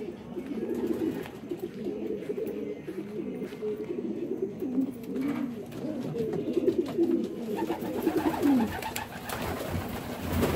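Several racing homer pigeons cooing, their low warbling coos overlapping.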